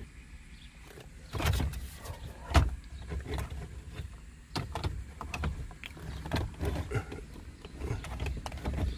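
Dodge Caliber's plastic centre-dash trim bezel being pulled off by hand around the stereo: a scatter of irregular clicks, knocks and rattles as its clips let go and the panel is handled, two sharper knocks standing out in the first few seconds.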